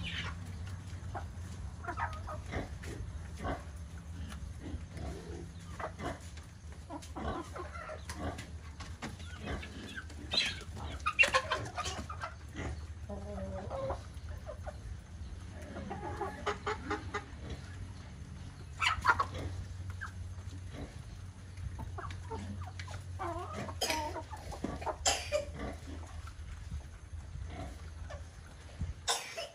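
Flock of chickens clucking as they feed, with many short, scattered calls and a louder burst about eleven and again about nineteen seconds in. A steady low hum runs underneath.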